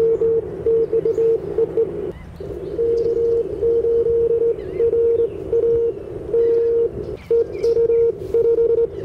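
Morse code from an Icom IC-705 transceiver on 20-metre CW: a single steady tone keyed on and off in dots and dashes, over constant receiver hiss. A few faint bird chirps come in during the second half.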